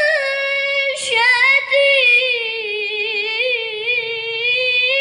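A woman's high-pitched voice reciting the Quran in melodic tajwid style, drawing out one long ornamented vowel with wavering, trilling pitch and a brief break about a second in.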